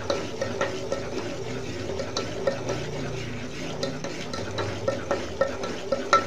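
A metal spoon stirs rice flour into hot syrup in a steel pot, scraping and clicking against the pot about three times a second. The quick stirring keeps the flour from forming lumps as the arisa pitha dough comes together.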